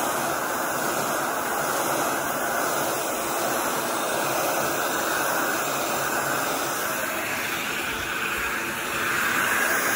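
Electric heat gun blowing a steady rush of hot air over freshly sprayed paint on a plastic console to dry it.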